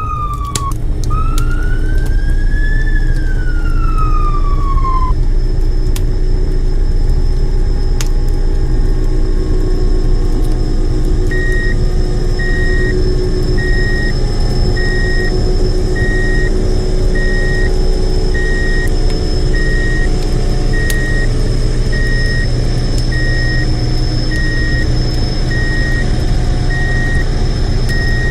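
Siren wailing up and down twice and stopping about five seconds in, over a steady low truck-engine drone. About eleven seconds in, a truck's reversing alarm starts beeping a little faster than once a second and keeps on over the engine.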